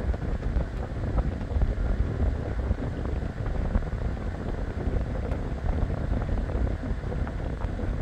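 Frigidaire portable air conditioner running: a steady rush of blown air with a low rumble.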